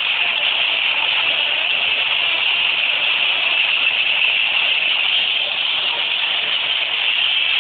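Top-load washing machine running at full speed with its timer removed, a steady rushing, churning noise that holds even throughout.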